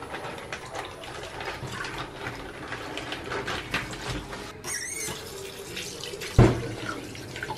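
Water running and splashing in a sink or basin, with small clattering knocks throughout and one heavy thump a little over six seconds in.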